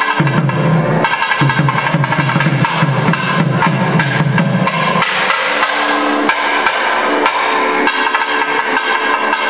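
Hindu temple puja percussion: fast, dense drumming with steady ringing tones above it. The drums drop away briefly in the middle and come back near the end.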